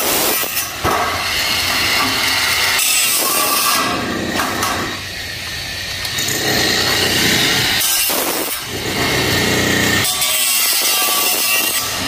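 Cordless angle grinder with a cutting disc slicing through sheet-metal roof flashing. The sound changes character several times as the disc bites into the metal and eases off.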